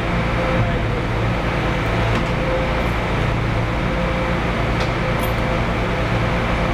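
Steady factory-floor background hum of machinery and ventilation, with a few faint clicks.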